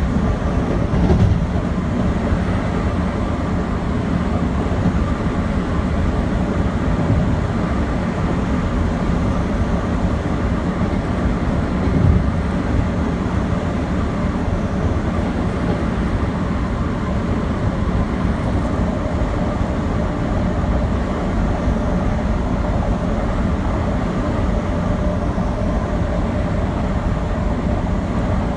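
Metro-North commuter train running steadily, heard from inside the car: a constant rumble of wheels on rail, with a louder knock about a second in and another about twelve seconds in.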